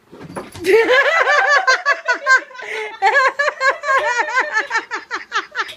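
Person laughing hard and high-pitched in a fast, unbroken run of short bursts, starting about a second in.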